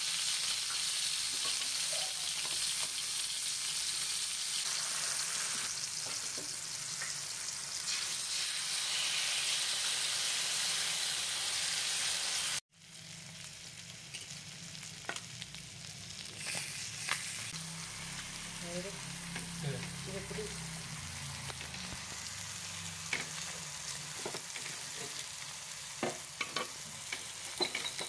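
Fish steaks coated in green hariyali masala sizzling in oil on a flat iron pan. The sizzle cuts out for an instant about halfway through and comes back quieter, with scattered pops and clicks that grow more frequent near the end.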